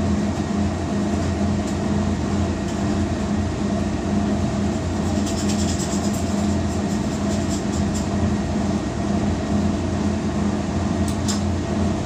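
Steady hum and rumble of running industrial laundry machinery, with a few light clicks about halfway through and again near the end.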